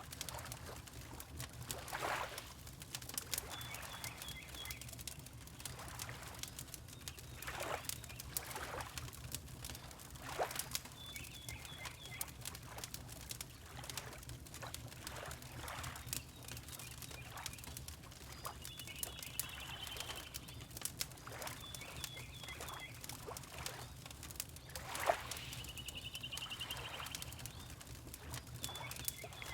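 Fireplace crackling with frequent small pops, over soft water lapping that swells every few seconds. A small bird gives short, high chirping trills about every few seconds.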